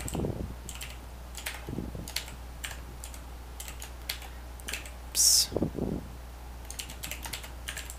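Typing on a computer keyboard: scattered key clicks with pauses between them, over a low steady hum. A short, louder hiss comes about five seconds in.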